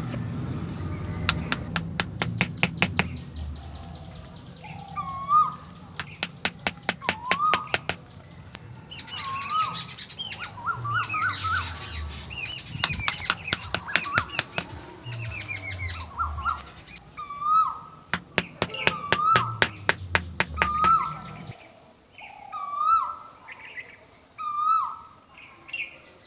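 Birds chirping and calling again and again, with runs of rapid clicking, over soft background music whose low notes stop about 21 seconds in.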